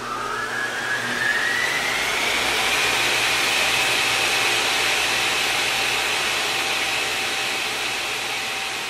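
A rising whoosh sound effect: a whine that climbs steeply in pitch over a rushing hiss, levels off at a high steady pitch about three seconds in, then slowly fades.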